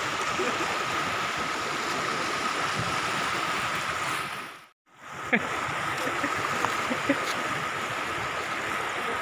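Rushing, churning floodwater of a swollen river pouring through an open weir gate, a steady noise of fast-moving water. It cuts out for a moment about halfway, then comes back much the same.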